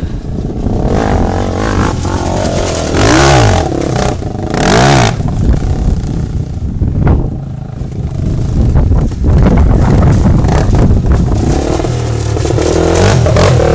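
Quad ATV engine revving up and down repeatedly as it is ridden through snow, with two loud rushes of noise about three and five seconds in, and settling to a steadier note near the end.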